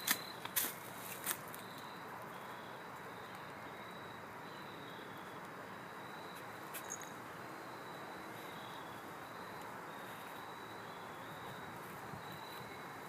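Insects chirping steadily outdoors: a high note repeated over and over in short pulses. A few sharp clicks or rustles fall in the first second or so, and one more comes near the middle.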